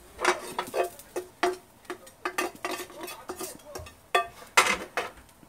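A metal knife scraping and clinking against a nonstick-coated frying pan while stirring its contents, in many quick, irregular strokes.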